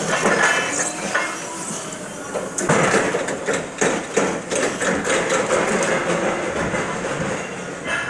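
Crown stand-up reach truck driving, its mast and forks rattling and clanking, with a run of sharp knocks about three seconds in.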